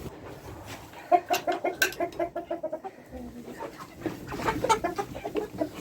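Chickens clucking: a fast run of short clucks about a second in, then more clucking near the end.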